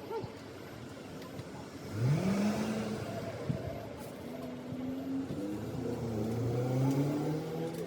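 Motor vehicle engine accelerating, its pitch rising sharply about two seconds in, then a second engine note climbing slowly through the second half.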